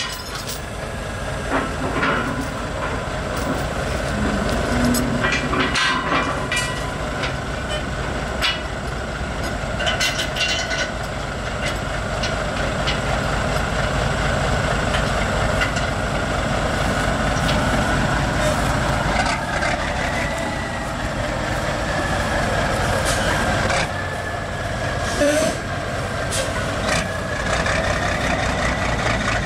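Diesel semi tractor running at low speed as it moves a loaded lowboy equipment trailer, its engine note steady with a whine that rises twice in the second half. Scattered knocks and clanks from the trailer and its load come mostly in the first half.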